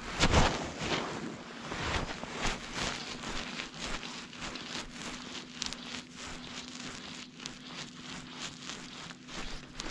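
Fly line being stripped in by hand through the rod guides, a run of short, uneven rasps and swishes, with wind on the microphone and small waves lapping against the float tube.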